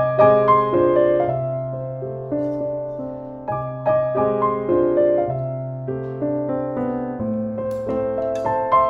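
Background piano music: notes struck and left to ring over slowly changing chords, with no singing.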